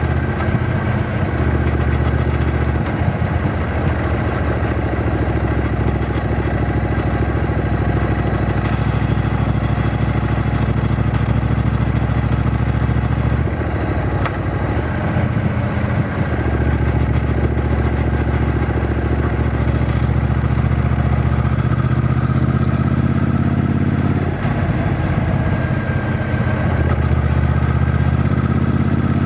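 Triumph Bonneville T120's 1200 cc parallel-twin engine running steadily while the motorcycle is ridden. Its note changes twice, about halfway through and again near the end.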